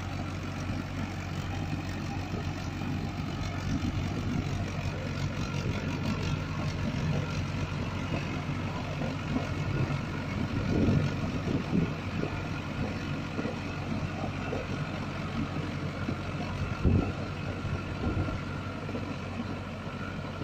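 Mahindra Arjun 555 DI tractor's four-cylinder diesel engine running steadily under load as it drives a rotary tiller through wet paddy mud. A few sharp knocks stand out, the loudest about 17 seconds in.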